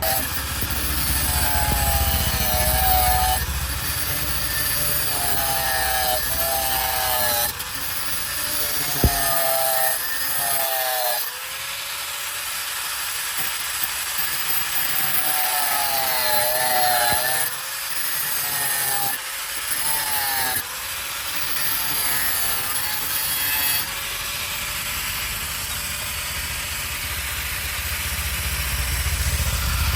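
Continuous rasping and rubbing of hand-tool work on the workpiece, with short squeaky tones recurring every second or two.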